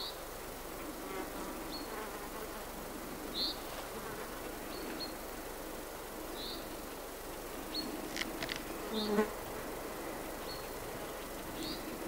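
Insects buzzing close by, with a louder buzzing pass about nine seconds in. A bird repeats a short high call about every three seconds over the forest background.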